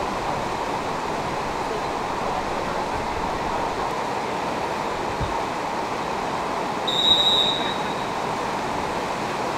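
Steady rush of fast-flowing floodwater, with a brief high-pitched tone about seven seconds in.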